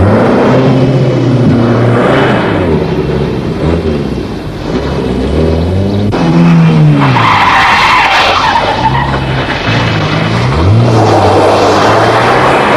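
Car engines revving hard and changing gear at speed, pitch climbing and dropping several times, with tyres squealing and skidding.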